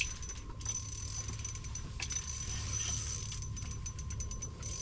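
Ice fishing reel being cranked as a hooked fish is reeled in, making a run of small, irregular mechanical clicks over a steady low rumble.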